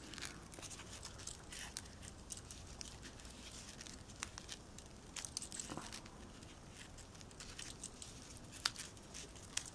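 Faint handling noise of metallic trim being wrapped around a fabric-covered plastic ring: soft rustling and crinkling with a few scattered light clicks.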